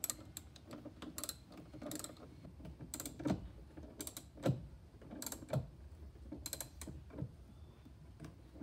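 Ratchet socket wrench clicking in irregular short spurts as it tightens a car battery terminal clamp bolt, with a couple of clicks louder than the rest.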